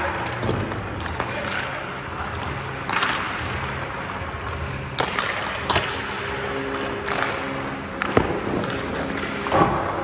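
Ice hockey skates scraping on rink ice, with several sharp knocks of a hockey stick on pucks and pucks striking the goalie, about five in all.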